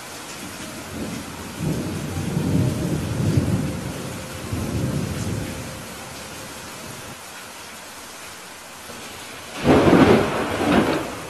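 Steady rain with thunder: a low rolling rumble from about two to five seconds in, then a louder, sharper thunderclap near the end that rumbles on for about a second.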